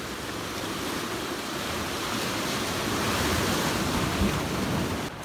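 Ocean surf washing in around shoreline rocks, a steady rush that swells louder through the middle as a wave surges in.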